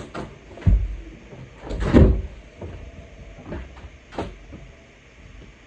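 A door being handled: a run of knocks and thuds, the loudest and longest about two seconds in, with smaller knocks after it.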